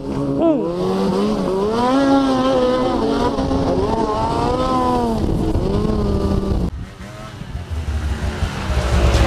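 Snowmobile engine revving, its pitch climbing, holding high, then falling away. It drops off sharply a little under seven seconds in, and a low steady drone builds near the end.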